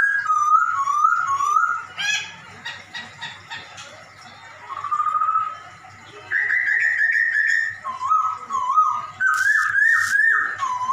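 Poksay Hongkong laughingthrush singing: runs of loud, repeated whistled notes that swoop up and down, changing pitch and pattern every second or two, with a couple of sharp clicks about nine seconds in.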